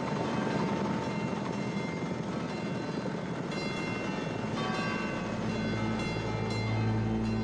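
A steady, dense rumbling noise like passing traffic, then music comes in about halfway through, its low bass notes swelling toward the end.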